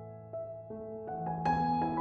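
Slow, gentle piano background music, single notes and chords that ring and fade, with a fuller chord struck about one and a half seconds in.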